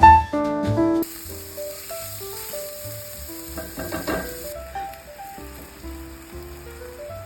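Lean ground beef sizzling as it browns in a pan, under piano background music. The music is loud for the first second, then drops back, and the sizzle is strongest from about a second in until past the middle.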